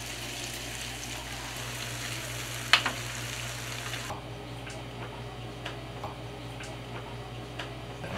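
Hot oil sizzling in a deep-frying pot as panko-breaded pieces are slid in from a metal tray, with one sharp knock near the middle. About four seconds in the sizzle stops, leaving soft ticks and rustles of hands pressing pieces into breadcrumbs.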